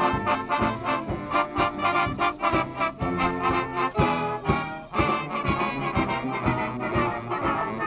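Background instrumental music with brass (trombone and trumpet) over a steady beat.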